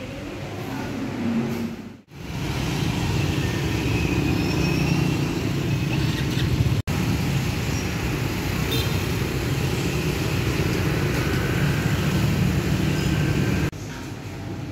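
Steady street traffic noise from passing vehicle engines, starting suddenly about two seconds in and dropping away near the end to a quieter indoor hum.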